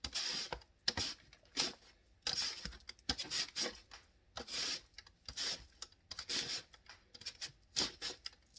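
Eggplant being sliced on a mandoline: repeated rasping swishes of the flesh drawn across the blade, with light clicks, about one stroke a second.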